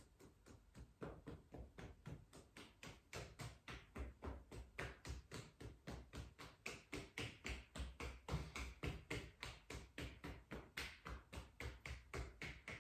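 Fists tapping on the sides of the calves as a self-massage: a quick, steady series of faint, soft thumps.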